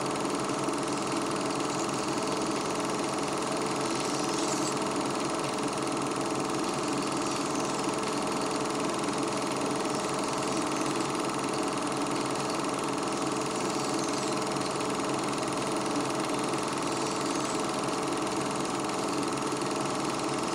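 Film projector running steadily, a continuous mechanical whir and clatter with no change throughout.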